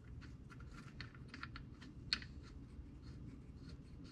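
Faint, irregular small metal clicks and ticks as bolts and washers for the rear axle bearing cap are handled and started by hand, with one sharper click about two seconds in, over a steady low hum.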